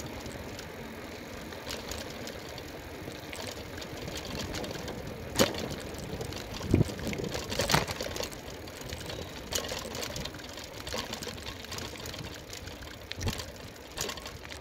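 Riding noise from a bike on a concrete road: a steady rumble of wind and tyres, with scattered sharp knocks and rattles, the loudest about halfway through.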